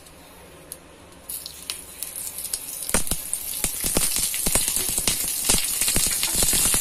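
Tadka heating in a small steel tempering ladle over a gas flame: oil with urad dal, curry leaves, a dried red chilli and mustard seeds. It begins as a faint hiss about a second in, then from about three seconds in sizzles with dense sharp crackles and pops that grow louder, the sign that the oil has come up to frying heat.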